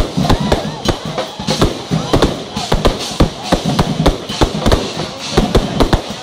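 Fireworks display: aerial shells and multi-shot cakes going off in a rapid, continuous barrage of bangs, several a second.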